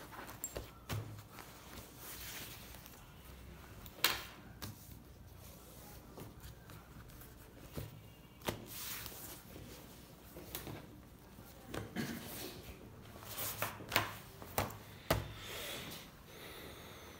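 Sheepskin leather jacket being handled and turned over on a table: rustling and rubbing of the leather, with several sharp clicks and knocks scattered through.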